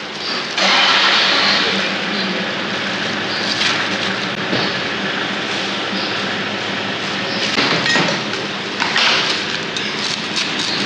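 A cleaver slicing roast pork on a thick wooden chopping block, with a few sharp knocks of the blade striking the block. Under them runs a loud, steady rushing noise.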